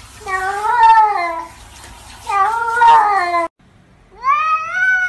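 Domestic cats meowing: three long drawn-out meows. The first two each rise and then fall in pitch. The last, about four seconds in, swoops up and holds high.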